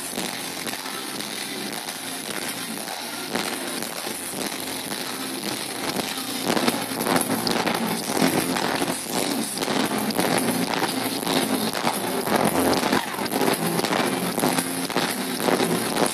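Live pop-rock band playing through a large PA, with guitars and drums. It is caught on a phone in the crowd as a distorted, muddy recording. It gets louder, with harder drum hits, about six seconds in.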